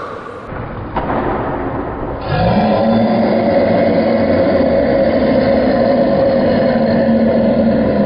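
A man's very long, loud burp, starting a couple of seconds in with a quick rise in pitch and then held at one steady pitch without a break.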